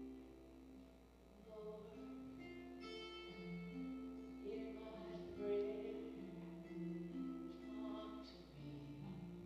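A communion song played during the service: held, slowly changing notes over guitar, with singing.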